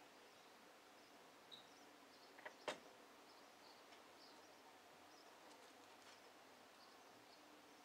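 Near silence: faint outdoor ambience with scattered, distant, high bird chirps, and a single sharp click about two and a half seconds in.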